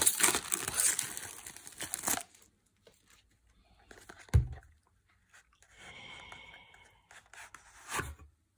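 Plastic wrapping being torn and crinkled off a small boxed bottle opener for about the first two seconds. Then quieter handling of the box, with a dull thump about four and a half seconds in, a soft scraping as the inner box slides out of its sleeve, and a short knock near the end.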